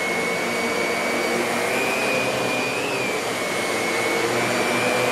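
Miele Twist S7210 upright vacuum cleaner running on carpet with its brush roller on, picking up scattered debris. A steady motor noise with a high whine that wavers a little in pitch.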